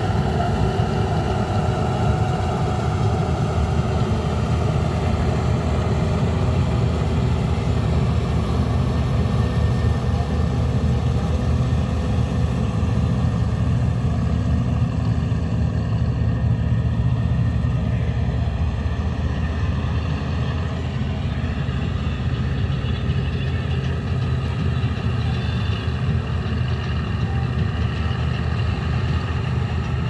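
Vishal 435 combine harvester running steadily while it cuts wheat: a continuous low engine drone mixed with the machine's threshing noise.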